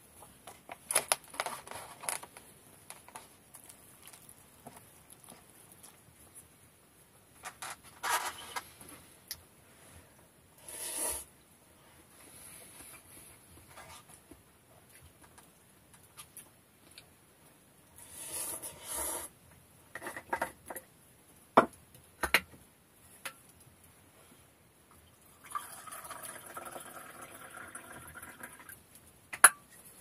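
Eating instant noodles from a cup: a utensil clicking and scraping against the cup, with a few short louder eating noises. Near the end, a hot drink is poured from a thermos into a mug for about three and a half seconds.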